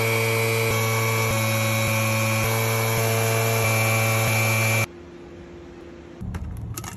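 Air-powered tool on a compressed-air hose running steadily, a loud hum with a high whine that cuts off abruptly about five seconds in.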